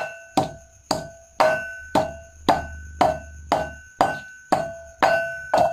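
Pestle pounding fresh herb leaves in a small mortar, about two strikes a second, each strike giving a short ringing clink from the mortar as the leaves are crushed to release their juice.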